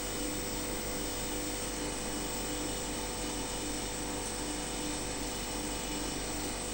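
Steady machine hum with several held tones and a low tone that pulses about twice a second.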